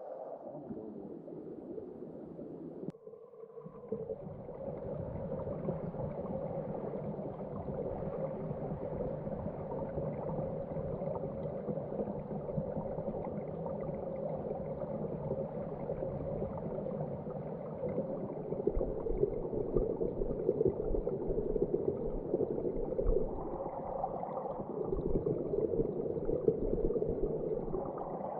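River water rushing and gurgling, a steady low, muffled churn with little high-end hiss; the sound changes abruptly about three seconds in and swells a little louder in the last third.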